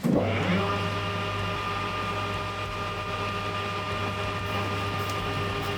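Metal lathe starting up and running steadily, a low motor hum with a stack of steady higher whining tones.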